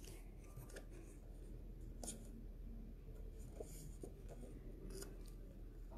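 Faint handling of card stock on a tabletop: soft paper rustles and a few light ticks as card is folded and picked up.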